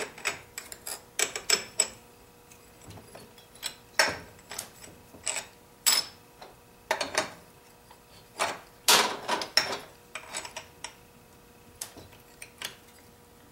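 Small metal chainsaw clutch parts (clutch, sprocket and drum) clicking and clinking as they are handled and fitted onto the crankshaft by hand: irregular light clicks with a few louder knocks.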